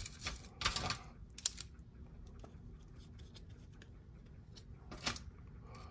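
Metal parts of an Audi 2.0 TFSI two-stage oil pump being handled, giving a few short clicks and scrapes: several in the first second and one about five seconds in, with quiet between.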